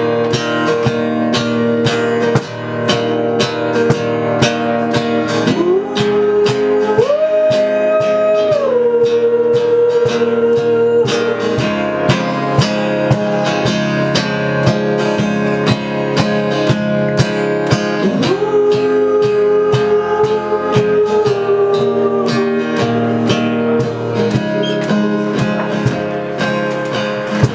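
Live acoustic guitar strummed in a steady rhythm, with long wordless held notes that glide up and down in pitch twice.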